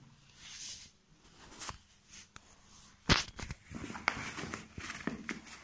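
Sneakers handled by hand over a tiled floor: one sharp knock about three seconds in, then light taps and rustles.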